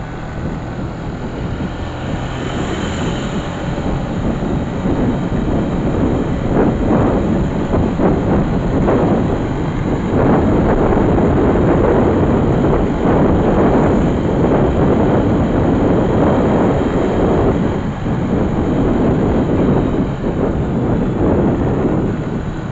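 Engine and road noise of a moving vehicle heard from inside the cab, a steady rumble that grows louder over the first several seconds as it picks up speed.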